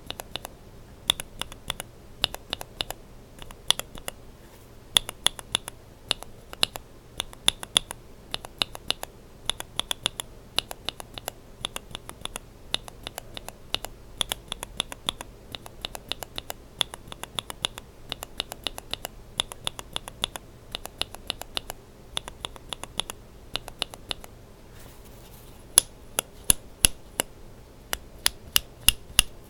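Linear mechanical keyboard switches with Kailh burgundy stems, one in a BSUN Brown housing with a Yok top and one in a GSUS housing, pressed and released over and over, each stroke a sharp clack on bottom-out and top-out. After a brief pause near the end the clacks come louder and sharper.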